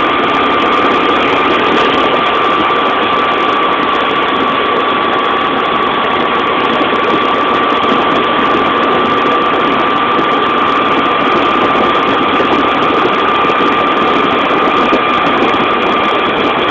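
Vehicle engine running steadily at an even cruising speed, with a steady whine over a constant rush of road and wind noise.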